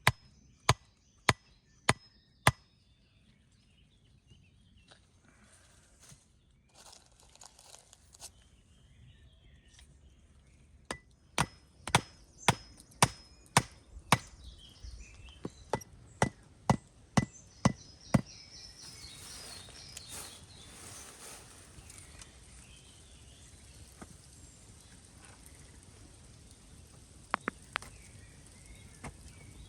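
Wood being chopped with sharp, evenly spaced strokes about two a second. A short run of strokes comes at the start and a longer run of about fourteen comes in the middle. Rustling follows the longer run, and a few lighter knocks come near the end.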